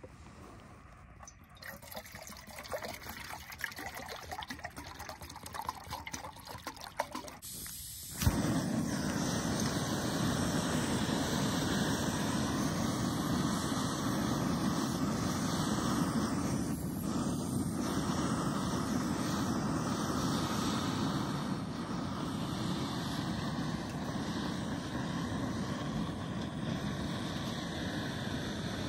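Backpacking canister gas stove lit with a sharp click about eight seconds in, then burning with a steady rushing hiss. Before that there are irregular handling and scuffing noises as it is set up.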